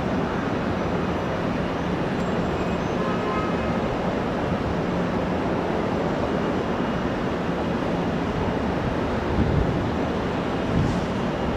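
Steady jet engine noise from airliners around the airport ramp and taxiways, with a faint turbine whine about two to three seconds in.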